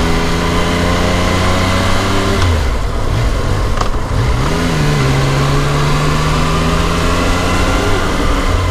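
Yamaha MT-09's three-cylinder engine running under light throttle while riding at low speed. About two and a half seconds in its note falls away, dips and climbs back, then settles at a steady, lower pitch.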